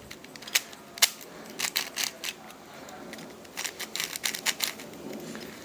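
Dayan Megaminx being turned by hand: irregular plastic clicks and clacks as its stiff, unlubricated faces snap round, a few single clicks, then quick runs of them. The owner hears spring noise on the yellow side being turned.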